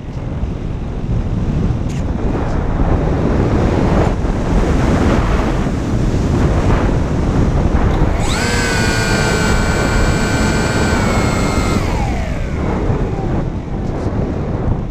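Wind rushing over the microphone of a Sky Eye FPV radio-control plane in flight. About eight seconds in, the plane's electric motor and propeller come in with a high, steady whine for about three and a half seconds, then drop in pitch and fade.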